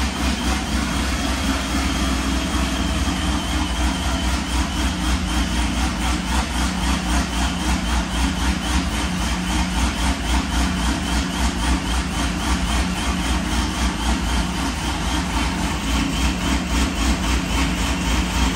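Cammed, ProCharger-supercharged V8 of a Pontiac G8 GT idling on a chassis dyno, with an uneven, choppy idle that pulses about twice a second.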